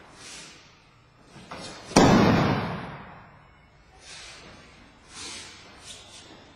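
A judoka landing on the mat in a breakfall after being thrown: one loud slap and thud about two seconds in. Fainter swishes of judo jackets and feet sliding on the mat come before and after it.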